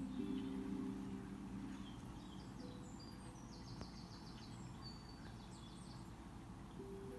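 Soft background music fades out, leaving faint birds chirping with quick high trills in the middle; the music comes back in near the end.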